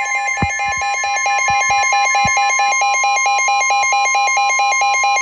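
Emergency weather alert tones: a steady, piercing beep held throughout, under a rapidly pulsing two-tone alarm. This is the warning alarm that announces a tornado warning.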